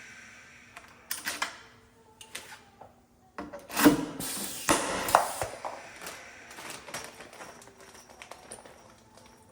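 Scattered sharp clicks and clattery knocks of hand tools and parts being handled on a workbench, the loudest a little under four seconds in and again about five seconds in.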